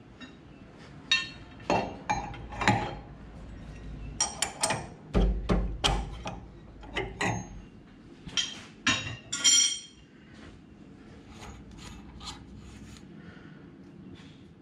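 Metal clinks and knocks of hand tools and the lathe's collet chuck as a small brass part is loosened and taken out of the collet. There is a string of sharp knocks for about the first ten seconds, then only quiet handling.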